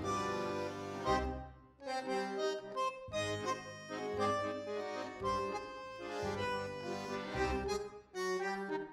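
Tango background music led by a bandoneon, its reedy accordion-like melody over a bass line that moves about once a second.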